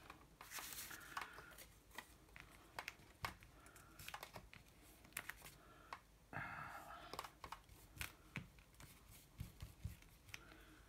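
Faint paper handling: torn newspaper scraps rustling and being pressed and smoothed by hand onto cardstock, with light taps and dabs of a glue brush. Many small scattered ticks, with a longer rustle about a second in and another about six seconds in.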